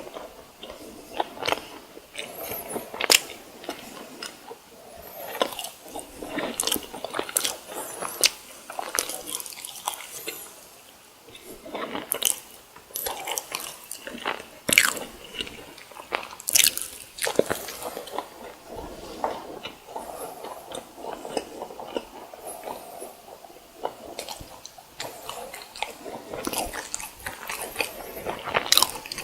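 Close-miked eating of fried snacks: biting and chewing with many irregular sharp crunches.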